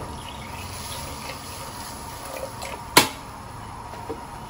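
Water poured from a jug into a steel pot of coconut milk, a steady splashing stream. A single sharp knock about three seconds in is the loudest sound.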